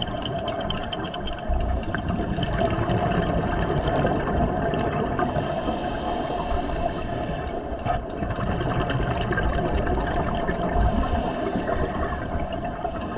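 Underwater sound of scuba breathing through a regulator, with gurgling exhaled bubbles and two longer hissing stretches partway through. A steady hum and a fast run of faint clicks run underneath.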